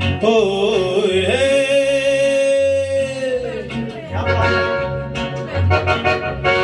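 A man singing into a handheld microphone over a karaoke backing track with a steady beat. He holds one long note from about a second and a half in until about three and a half seconds in.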